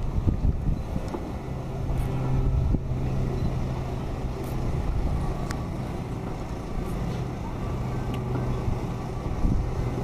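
Outdoor city ambience heard from high above: a steady low engine hum with a constant low rumble of distant traffic.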